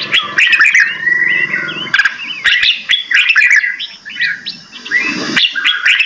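Several caged songbirds calling and singing at once: a dense, overlapping mix of chirps and short whistled notes that rise and fall, with a few sharp clicks among them.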